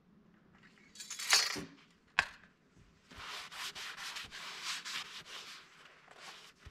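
Hands handling things in the work area: a short loud rustle about a second in, a sharp knock a little after two seconds, then several seconds of steady rubbing and scraping.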